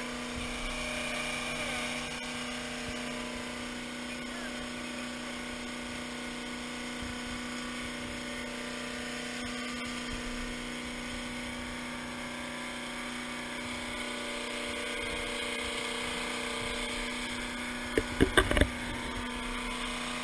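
Steady motor hum at a constant pitch. About two seconds before the end, a quick run of three or four loud, sharp knocks.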